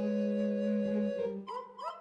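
Background music: a melodic instrument holds one note for about a second, then plays short notes.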